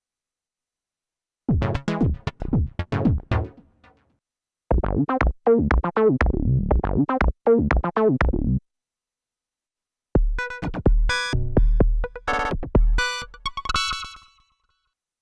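Korg Minilogue XD analog synthesizer playing factory presets in three short phrases with brief silences between them. The first two are quick runs of short, plucked synth notes. The last has heavy drum-like hits under a held tone.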